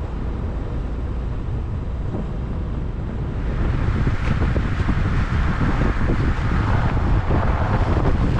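Car driving up a snow-covered mountain road: a steady low rumble of road and wind noise, which grows louder and hissier about three and a half seconds in.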